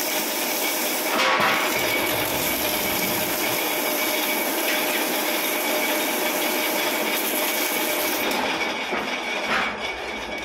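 A metal lathe running with a clutch flywheel spinning in it while sandpaper is held against the flywheel's friction face, giving a steady scraping hiss over the machine's hum. The sanding smooths the worn clutch contact face so that it no longer causes clutch slip and dragging. Near the end the sound drops off as the sandpaper comes away.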